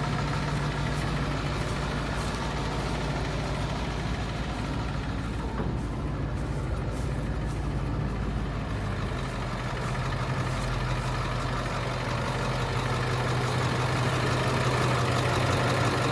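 International medium-duty dump truck's diesel engine idling steadily, a constant low hum.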